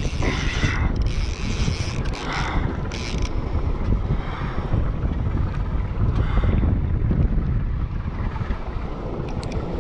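Conventional fishing reel being cranked steadily against a hooked fish, its gears and handle working under load, with wind rumbling on the microphone.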